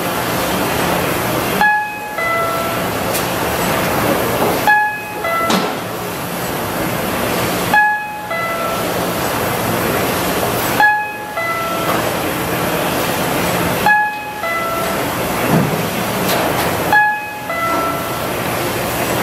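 RYOBI 758P eight-colour sheetfed offset press running with a steady mechanical noise. About every three seconds the noise dips briefly and a two-note electronic beep sounds.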